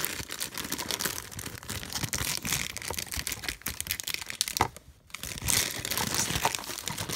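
A cardboard blind box tearing and a black foil bag crinkling as it is handled and pulled out, a dense crackle of many small clicks with a short pause about five seconds in.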